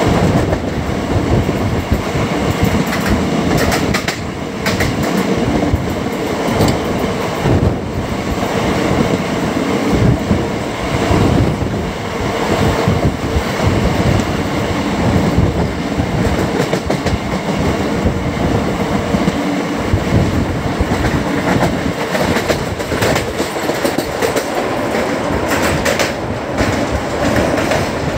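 Andaman Express passenger train running along the track: a steady loud rumble and rush of the coaches, with wheels clicking over rail joints now and then.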